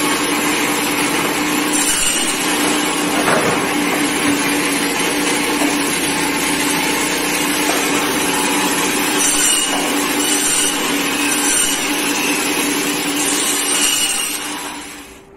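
Butcher's meat band saw running with a steady motor hum while its blade cuts chicken on the bone. It fades out near the end.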